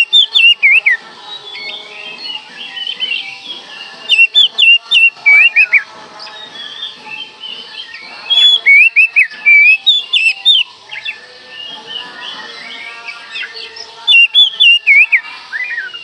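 Oriental magpie-robin (kacer) singing loudly: four rapid runs of whistled notes sliding up and down, each lasting one to three seconds, a few seconds apart, with fainter notes in between.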